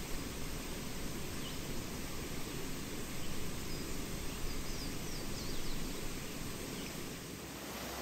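Steady rush of a mountain stream, with faint bird chirps and short whistled notes above it.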